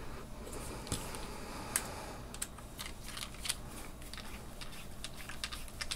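A small Torx screwdriver working a screw on a spinning reel, with hands handling the reel's parts: light, scattered clicks and ticks, a few a second.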